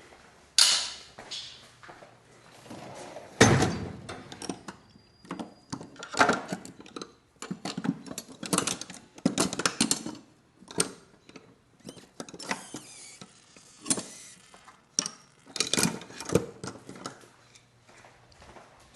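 A wrench worked on the bolts that clamp the handles onto a Jansen MB 500's frame, with irregular metal clicks, knocks and clanks, two sharp ones loudest near the start.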